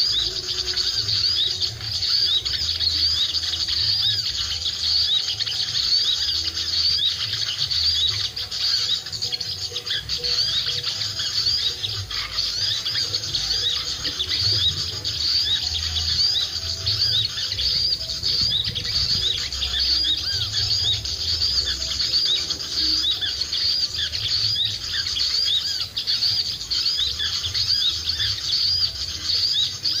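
Dense, unbroken high chirping of small birds, a bird-luring (pikat) call played to draw small birds down to the perch. Wind rumbles unevenly on the microphone underneath.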